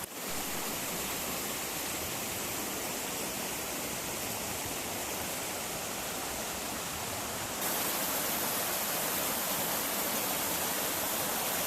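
Waterfall rushing over a rocky check dam, a steady hiss that gets louder and brighter about two-thirds of the way through.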